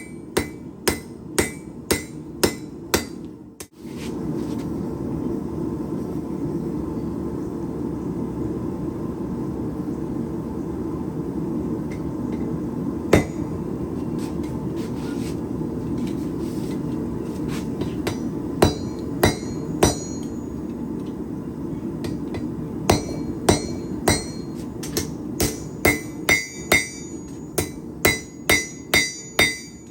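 Hand hammer striking hot steel on an anvil while forging a knife blade, each blow ringing. Quick runs of blows at the start and near the end, with scattered single blows between, over a steady rushing noise that begins a few seconds in.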